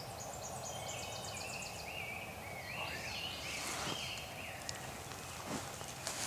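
Songbirds singing in a spring field: runs of short, repeated high whistled notes, with a brief rustle about four seconds in.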